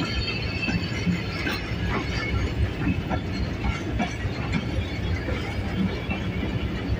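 Passenger coaches rolling slowly along the rails as a train pulls into a station: a steady rumble with wheels clicking over rail joints and a thin squeal from the wheels now and then.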